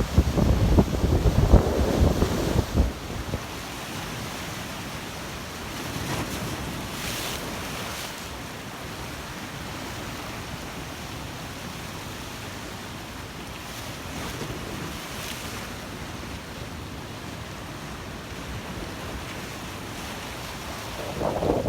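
Big sea waves surging and breaking in a strong wind, with gusts buffeting the microphone hard for the first three seconds and again just at the end; in between a steadier rush of surf.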